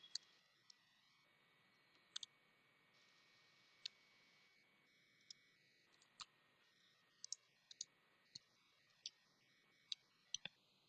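Computer keyboard keys clicking during typing: sparse, separate taps at an uneven pace with short pauses between them, over faint room hiss.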